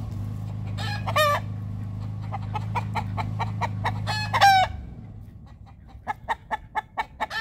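Chickens calling: two short pitched calls, about a second in and the louder one around four seconds, then a run of quick clucks near the end. A steady low hum runs beneath the first part and stops suddenly a little before five seconds.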